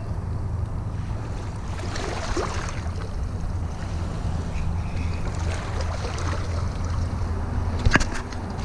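A steady low drone with a noisy wash over it, and one sharp click about eight seconds in.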